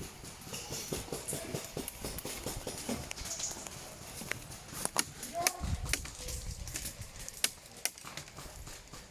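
Airsoft guns firing during a skirmish, a handful of sharp single cracks over the second half, the loudest about five seconds in. Irregular knocks and scuffs of a player moving and gear shifting run underneath.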